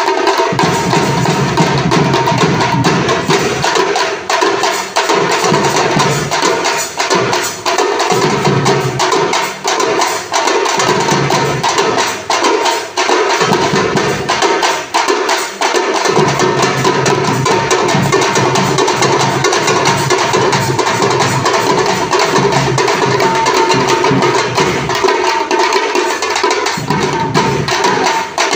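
Parai frame drums beaten with sticks in a fast, dense, continuous rhythm, with a deeper barrel drum coming in and out underneath and a steady held tone running through.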